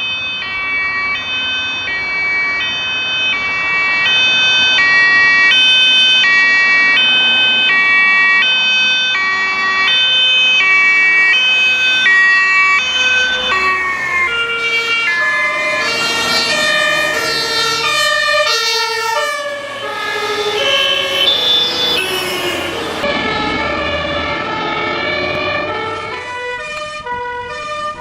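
Fire engine's two-tone siren, alternating evenly between a high and a low note about every half second. From about halfway, more two-tone sirens at other pitches overlap it, over the low rumble of the vehicles.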